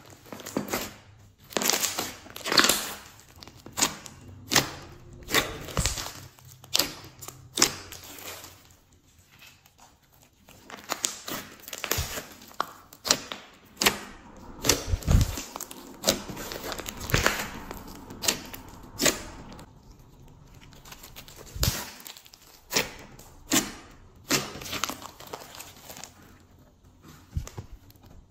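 Glossy slime being squished, pressed and stretched by hand, making irregular wet pops and crackles, a few a second at the busiest, as air trapped in it bursts.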